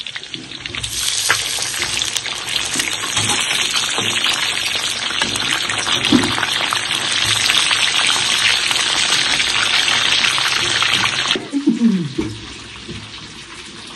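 Food frying in hot oil in a pan: a loud, dense crackling sizzle that cuts off suddenly near the end.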